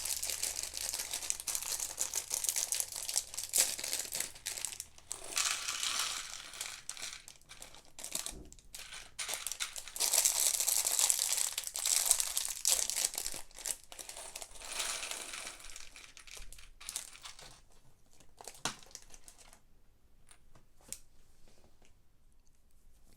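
Plastic bags of Lego Technic parts crinkling as they are handled, with small plastic pieces clicking against each other. It dies down to a few faint clicks over the last few seconds.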